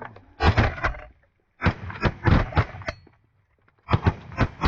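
Shotgun fire: sharp, loud bangs in three quick clusters, several shots in each, with short gaps between them.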